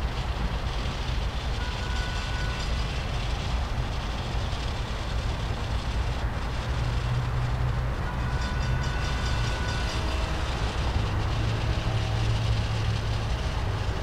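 CSX train rolling past: a steady rumble of wheels on rails, with a thin high tone twice, each lasting about a second.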